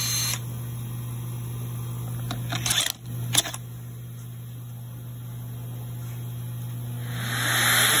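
Low hum, with a few sharp handling knocks about two and a half to three and a half seconds in. About a second before the end, a shop dust extractor comes on and its airflow hiss swells through the hose hooked to the drill guide.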